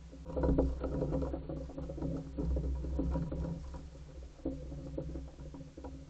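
Common pigeons moving on a wooden deck railing: a dense run of quick taps and flutters from their feet and wings, over a low steady rumble.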